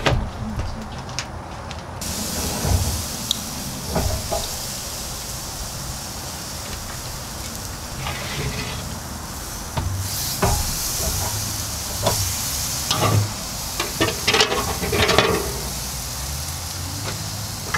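Baby back ribs sizzling with a steady hiss as they are laid on the hot grate of a Vision Grill kamado. A few short knocks and clatters from the meat and a metal sheet pan sound over it.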